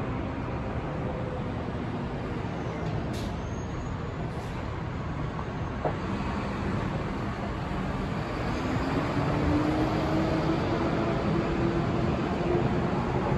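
Downtown street traffic: a steady wash of engines and road noise. There are two short hisses about three and four seconds in, and a vehicle's engine note rises and then holds from about two-thirds of the way through.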